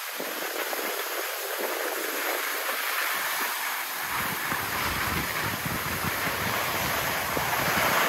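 Skis sliding and scraping over packed snow, a steady hiss, with wind rumbling on the microphone from about halfway through.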